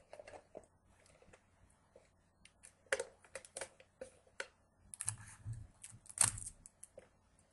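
Irregular sharp clicks and crinkles of thin plastic from a cut 2-liter soda bottle being handled and pressed together, with a few dull knocks about five seconds in.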